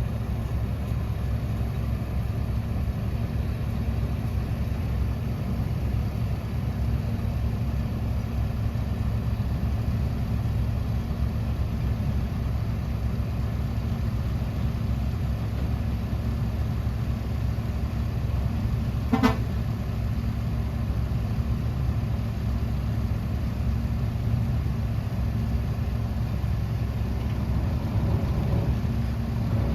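Heavy diesel engine of earthmoving machinery running steadily in a low drone, with one short sharp knock about two-thirds of the way through.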